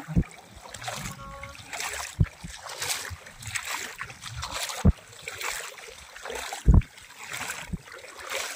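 Shallow water splashing and sloshing around wading legs, with four short low thumps spread through it, the loudest near the end.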